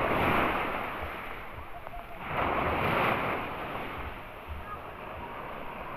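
Small waves breaking and washing up a sandy shore, in two surges of surf: one at the start and another about two and a half seconds in.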